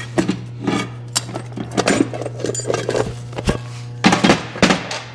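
Pressed-steel torque converter shells and parts clanking and clinking against each other and a steel workbench as they are handled, with a cluster of the loudest clanks about four seconds in, over a steady low hum.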